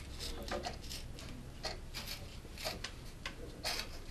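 Scissors trimming cork tape wrapped on a fishing rod blank: a string of short, soft snips, roughly one a second.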